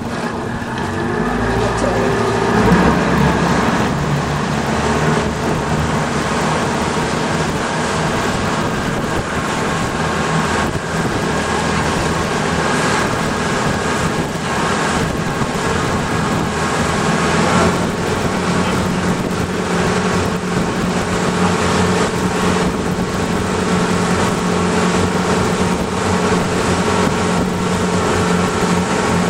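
A boat's motor running steadily under way, picking up a little about two seconds in, with wind and water rushing past.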